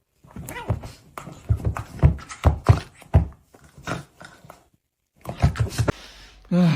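A dog making a rapid run of short sounds, then a drawn-out note falling in pitch near the end.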